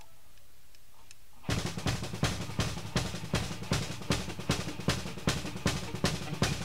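A drum kit comes in about a second and a half in with a fast, steady beat on snare and bass drum, opening a live rock song. Before it there is only faint room tone.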